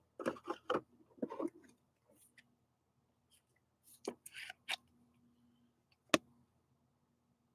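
Trading cards and plastic card sleeves being handled on a desk: soft rustling and sliding for the first second and a half, a few sharp clicks about four seconds in, and one louder tap about six seconds in.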